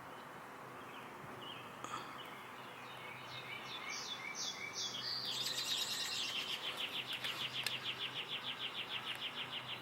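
A songbird singing: a few short falling notes, then a long, fast, even trill.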